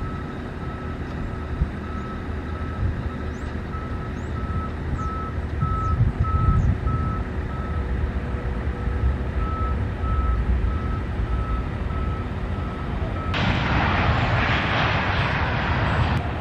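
Boeing 737-900ER landing: a steady low jet rumble, with a vehicle's reversing beeper beeping about one and a half times a second through most of it. About three seconds from the end, a loud rushing noise starts suddenly and lasts about three seconds.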